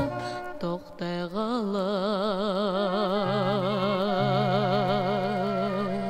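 A woman singing one long held note with wide vibrato over orchestral accompaniment, a Soviet pop song played from a Melodiya vinyl LP. The note comes in after a brief break about a second in.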